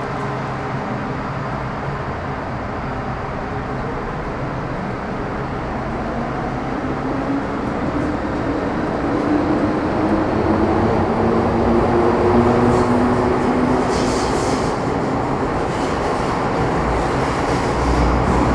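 Running sound of an MTR Metro-Cammell M-Train (C239) electric multiple unit with GEC GTO chopper traction, heard on board. The traction motor and chopper whine climbs steadily in pitch as the train gathers speed, over a constant rumble of wheels and tunnel noise.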